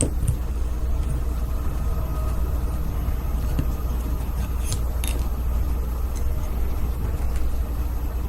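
A steady low rumble, with a few faint light clicks about five seconds in, likely from the knife's handle scale and small parts being handled.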